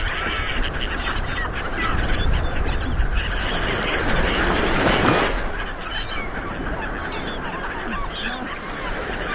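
Ocean surf washing onto the shore, one wave surging in and peaking about five seconds in before easing back, with many birds calling in short honking cries over the wash.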